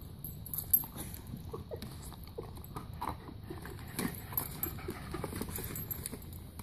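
Corgi biting and chewing corn kernels off a hand-held cob: an irregular run of crisp crunches and clicks, with one sharper snap under a second in.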